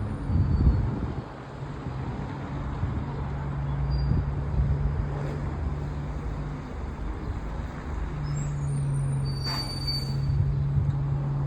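Bus engine idling with a steady low hum, with a louder rumble in the first second and a short air-brake hiss about ten seconds in.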